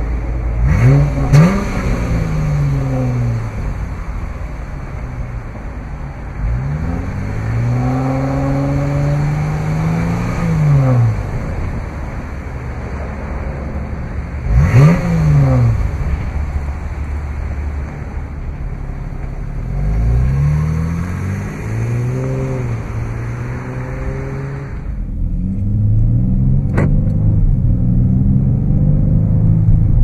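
A 2016 Dodge Charger SXT Plus Rallye's 3.6-litre Pentastar V6 idling and being revved about five times in neutral. Some are quick blips that rise and drop straight back, and others are held at higher revs for a few seconds before falling back to idle.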